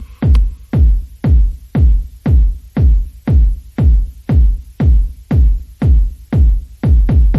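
Electronic background music driven by a deep, steady kick drum at about two beats a second.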